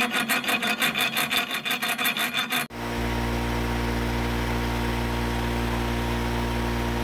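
Round file rasping back and forth in a bolt hole of a steel tow-hook bracket held in a bench vise, a quick run of even strokes elongating the hole. After about two and a half seconds the filing stops abruptly and a steady motorised hum takes over.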